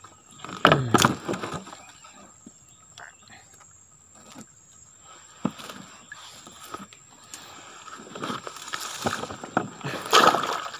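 Wire-mesh fish trap being handled in a small boat: scattered knocks and rattles of its frame and netting, with water sloshing. A louder splash comes near the end.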